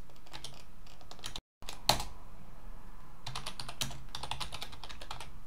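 Typing on a computer keyboard: keys clicking in short bursts, with one louder keystroke about two seconds in and a brief break in the sound just before it.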